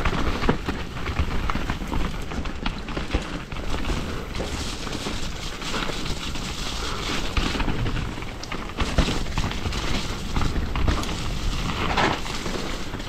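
Mountain bike descending a wet, rocky dirt trail: tyres rolling and crunching over rock, dirt and leaves, and the bike rattling and knocking over bumps, with a steady low rumble underneath.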